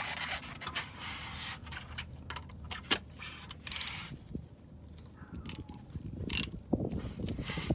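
Hand ratchet socket wrench being handled: sharp metal clinks as the socket is handled, then a run of quick ratchet clicks near the end.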